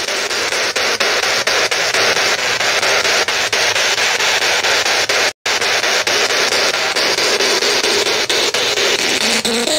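Spirit box scanning radio static through a small portable speaker: a steady hiss broken by rapid, regular clicks as it jumps from station to station. It cuts out completely for an instant about five and a half seconds in.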